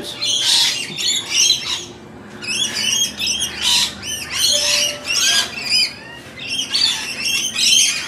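A mixed flock of feeding birds, rainbow lorikeets and noisy miners among them, calling all at once: a dense run of harsh, high squawks and chirps that comes in loud spells with brief lulls.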